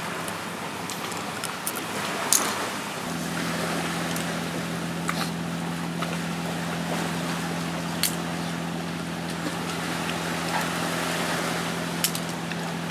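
Shore ambience of wind and sea, with a few sharp clicks of things being handled. A steady low hum sets in suddenly about three seconds in and carries on.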